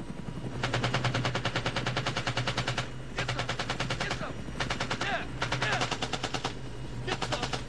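Full-automatic gunfire in several long bursts of rapid, evenly spaced shots, the first starting about half a second in.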